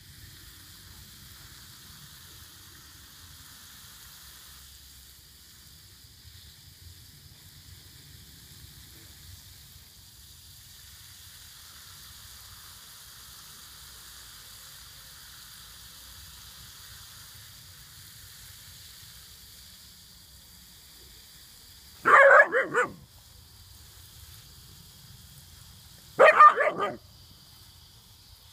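Alaskan Malamute puppy barking in two short bursts about four seconds apart, near the end, over the steady hiss of water spraying from a garden hose wand onto grass.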